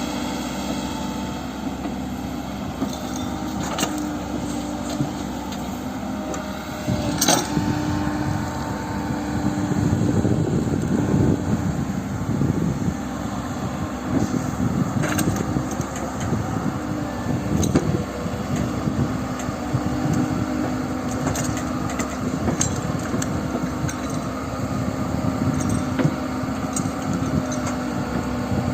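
Heavy construction machinery with a diesel engine running steadily at a site where sand and rock are being loaded. Sharp knocks come now and then, and from about seven seconds in there is a stretch of rougher, louder rumbling that lasts roughly ten seconds.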